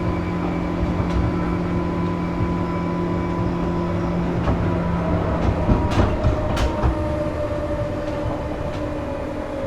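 JR West 201 series thyristor-chopper electric train in motion: steady whining tones over rumbling wheel and track noise, the tones shifting about five seconds in, with a few sharp clicks around six seconds in.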